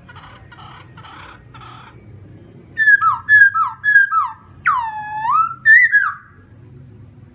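Black laughingthrush (khướu mun) singing: soft rasping notes at first, then about three seconds in a loud run of clear whistles, four that each drop sharply in pitch, one long swooping note that dips and rises again, and a short closing note.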